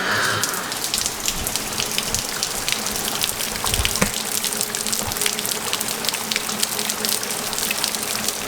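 Steady rain falling outside an opened door, a continuous hiss dense with the patter of individual drops.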